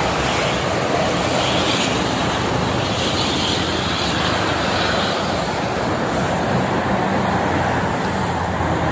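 Steady traffic noise of a busy multi-lane toll road: trucks, buses and cars passing at speed, their engines and tyre noise blending into a continuous sound.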